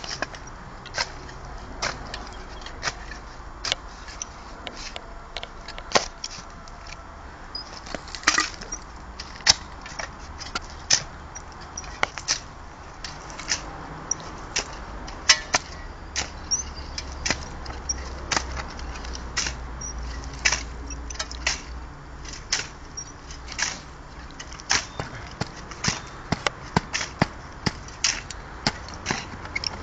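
A hand digging tool striking and scraping rapidly into earth and buried debris in a bottle-dump pit: a long run of sharp, irregular knocks and clicks, sometimes several a second.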